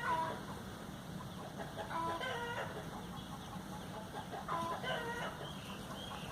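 Chickens clucking faintly in the background, a few short calls spaced a couple of seconds apart.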